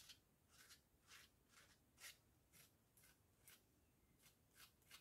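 Faint short scrapes of a palette knife spreading crackle paste over card, about two strokes a second.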